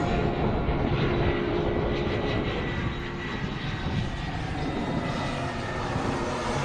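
Airplane passing low overhead on its landing approach, a steady engine rumble with a high whine that fades about halfway through.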